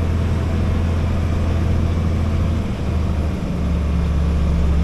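Heavy diesel engine of harvest machinery running steadily under load. About three seconds in, its pitch drops slightly.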